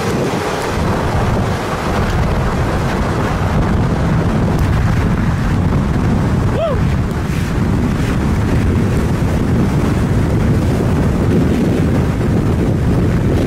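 Strong wind buffeting the microphone: a steady, loud low rushing noise with no breaks.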